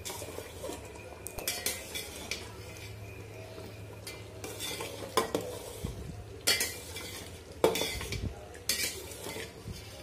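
Metal spatula stirring thick rice-and-lentil khichuri in a stainless steel pot, scraping and knocking against the pot's sides and bottom at irregular intervals, with several sharper clinks in the second half. The stirring keeps the khichuri from catching on the bottom.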